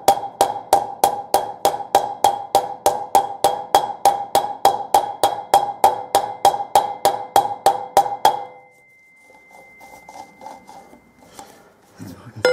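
Ball-peen hammer tapping steadily, about four strikes a second, on an old wheel bearing used as a drift, driving a new bearing into a motorcycle wheel hub. Each strike rings with a clear metallic note. The tapping stops about eight seconds in, and a few fainter, lighter taps follow.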